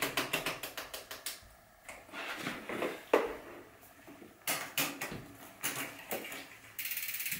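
A bicycle's freewheel ticking as the cranks and chain are turned, a quick run of clicks that slows and fades, then a few knocks of handling the bike, and a fast, even ticking near the end.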